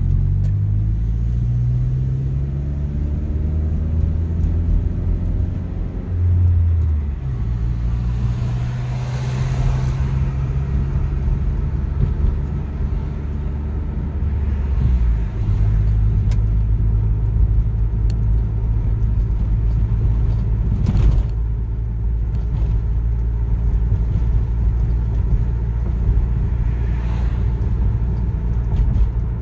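Car engine and tyre noise while driving. The engine's low hum rises in pitch in the first couple of seconds, holds steady, then settles lower about halfway through. A swell of broader noise comes about a third of the way in.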